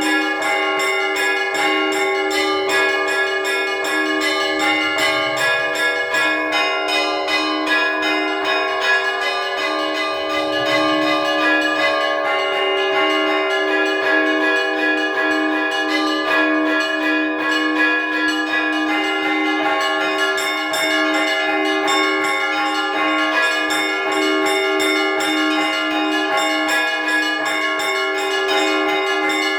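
Russian Orthodox church bells ringing a trezvon: fast strikes of small bells over a lower bell struck about twice a second, all ringing on together without a pause.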